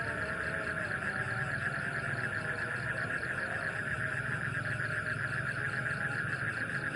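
A loud, steady night chorus of frogs, calling in fast, dense pulses. Behind it a faint, distant call to prayer wavers in and out.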